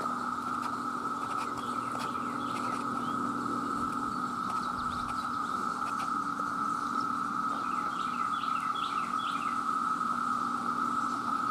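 Chorus of male cicadas calling in a steady, unbroken drone. Bird chirps come through twice, about two seconds in and again around eight seconds.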